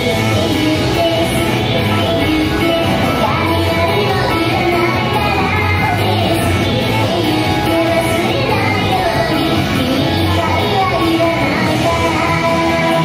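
Pop song with a sung vocal, playing loud and steady.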